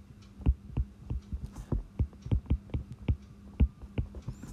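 Stylus tapping and scraping on a tablet's glass screen during handwriting: a run of sharp, irregular taps, several a second, over a faint steady hum.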